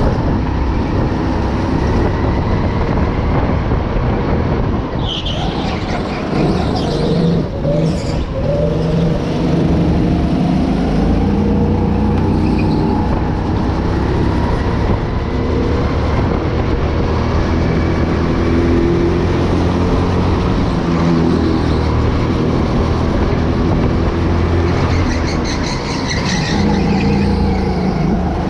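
Go-kart engine heard from onboard, running hard, its pitch rising and falling again and again as the kart accelerates and slows through the corners.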